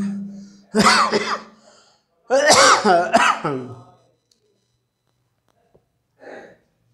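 A man coughing and clearing his throat, about four loud harsh bouts in quick succession, then one short fainter one near the end.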